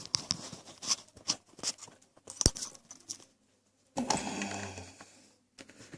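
Lock pick hook working the pins of a Baldwin pin-tumbler lock under tension: a run of small, quick metallic clicks and scrapes, with one sharper click about two and a half seconds in, from pins the picker takes for serrated. A short rushing noise follows about four seconds in.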